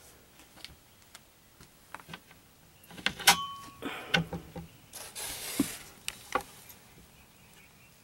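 A brass latch clicked open and a plywood cabinet door on a homemade composting toilet box handled and swung open: scattered light clicks, then a louder cluster of sharp clicks and knocks, one with a brief ring, followed by a short scraping rustle and a last click.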